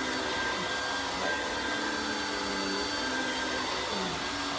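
Upright vacuum cleaner running steadily: a constant rush of air with a steady motor whine.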